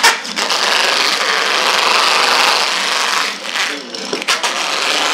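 Cylindrical stainless-steel fish scaler rasping scales off a large fish on a wooden board: a fast continuous scraping for about three seconds, then separate scraping strokes.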